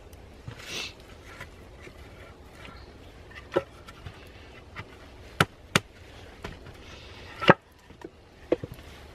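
Bark-covered wooden poles knocking against each other as they are handled and set onto a log table frame: a handful of sharp wooden knocks, the loudest about three-quarters of the way through, with some rustling between them.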